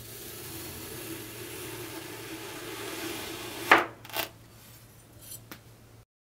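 Knife slicing down through a block of kinetic sand: a steady, grainy rasp. Then two sharp knocks a little before four seconds in as the blade reaches the table, and a faint click later.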